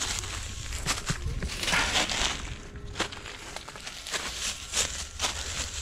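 Footsteps crunching through undergrowth, with irregular crackles and snaps and a louder rustle about two seconds in.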